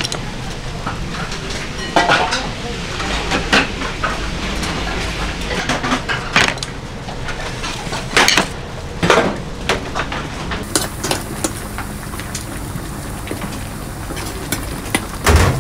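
Metal rice bowls, dishes and pots clinking and clattering as they are set on steel serving trays, a scatter of sharp clinks over a steady low hum.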